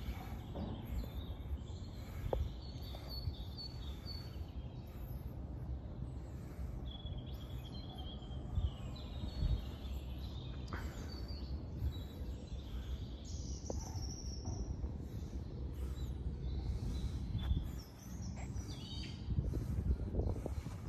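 Outdoor ambience: scattered songbird chirps and calls over a steady low rumble of background noise.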